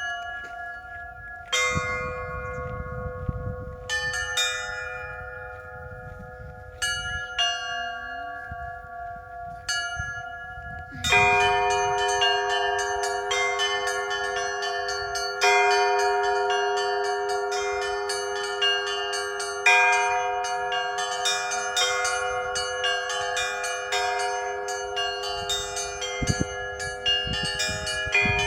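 Russian Orthodox chapel bells rung by hand by a bell ringer. A few separate strokes ring out and hang for a second or more, then about eleven seconds in the ringer breaks into a full peal: small bells chiming rapidly over the steady ring of lower bells.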